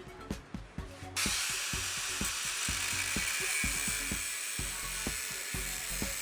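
Background music with a steady beat; about a second in, a steady high hiss of a power tool, typical of an angle grinder working metal, starts and continues under the music.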